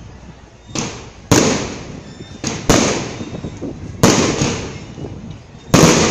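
Aerial fireworks bursting overhead: a string of about seven loud, sharp bangs at uneven gaps, some in quick pairs, each dying away over about half a second.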